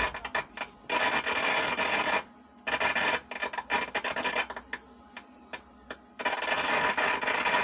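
Harsh crackling and scratching noise from channel 1 of a DOD 430 graphic equalizer, heard through the amplifier's speaker in irregular stretches broken by short gaps. It is a fault in that channel, which the repairer puts down to a bad IC.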